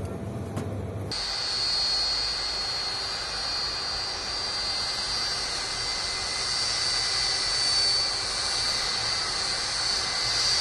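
Jet airliner's engines running as it taxis on the runway: a steady rushing noise topped by a high whine. About a second in, this abruptly replaces a quieter low rumble.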